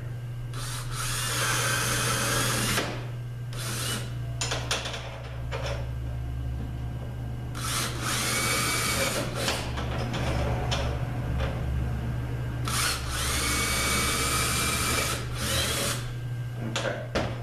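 Cordless drill with a 3/16-inch bit enlarging the rivet holes in the riveted K2 clutch-drum piston of a Mercedes 722.3 automatic transmission, cutting metal. Three runs of about two seconds each, with short bursts between, over a steady low hum.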